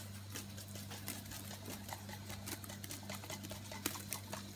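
Wort at a rolling boil in a stainless steel brew pot, a dense irregular crackle of popping bubbles over a steady low hum.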